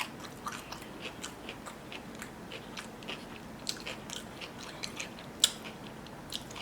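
A person chewing crunchy cucumber: a run of irregular crisp crunches and mouth clicks, the sharpest about five and a half seconds in.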